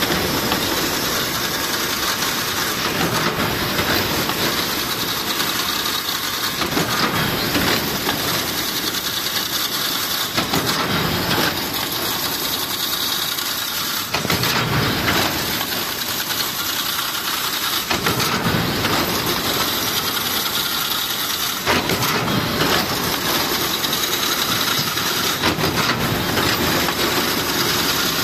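Automatic chain-link fence machine weaving galvanized wire into diamond mesh: a loud, steady metallic clatter and hiss with many small clicks, going through a cycle about every three to four seconds.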